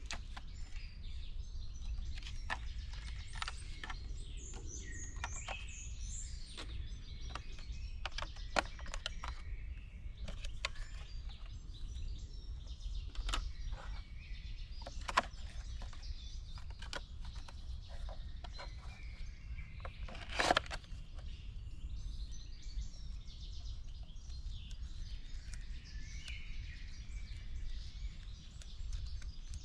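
Forest ambience: birds chirping and calling over a steady low rumble, with scattered small clicks and taps, the loudest about two-thirds of the way through.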